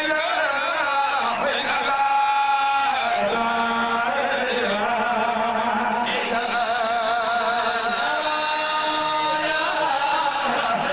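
A man chanting an Islamic devotional song solo into a handheld microphone. He holds long notes and ornaments them with wavering, winding turns, in phrases broken by brief breaths.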